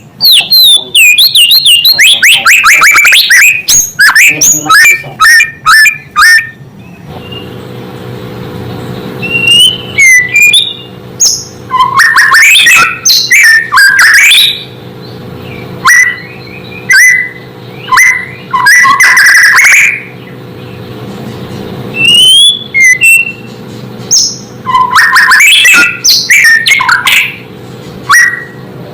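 White-rumped shama (murai batu) singing loud bursts of fast sliding whistles, trills and chattering notes, separated by short pauses.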